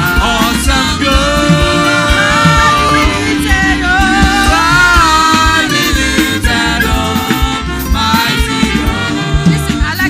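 Live gospel worship music: sustained sung notes over a band's bass and drums.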